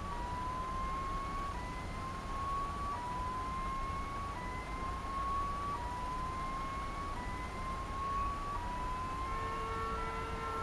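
Electronic level-crossing warning signal sounding ahead of an approaching train: a tone that slowly rises in pitch over about a second and a half, then drops back and repeats, steadily. Near the end a second steady tone sounds for about two seconds.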